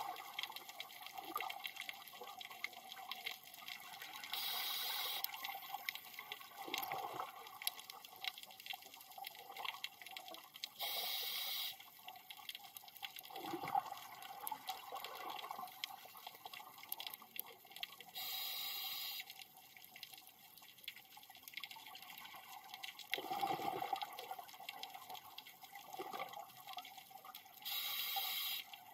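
Scuba diver breathing through a regulator underwater: a short hiss of breath through the regulator about every seven seconds, four times, with bubbling and gurgling of exhaled air in between.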